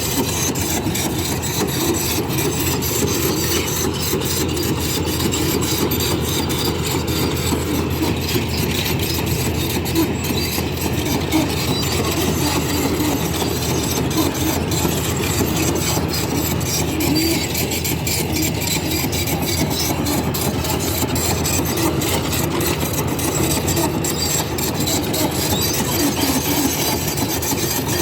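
Kobelco excavator working, its diesel engine and machinery running steadily with a dense, harsh mechanical noise that never lets up.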